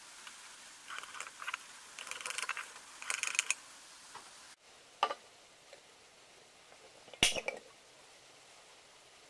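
A metal scriber scratching lines across a tin can's steel lid along a ruler, in several quick strokes. Two sharp knocks follow, about five and seven seconds in.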